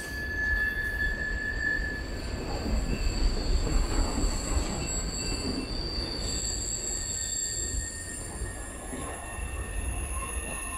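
Freight cars rolling past on a curve: a low rumble of wheels on rail under the wheels' flange squeal, several steady high-pitched tones, one stopping about two seconds in and a higher one starting about six seconds in.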